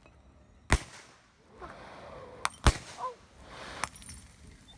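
Homemade sparkler bombs going off: two loud sharp bangs about two seconds apart, with a couple of smaller cracks and a rushing hiss between them.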